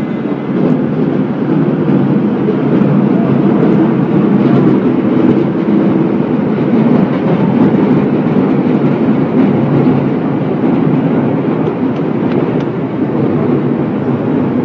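Waste yarn cutter-crusher running, its electric motors, cutting rotor and dust-removal blower giving a loud, steady mechanical drone as waste yarn is fed in on its conveyor.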